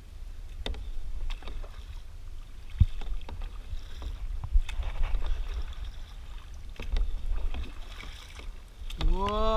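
Kayak paddling: double-bladed paddles dipping and splashing in seawater in irregular strokes, over a low steady rumble.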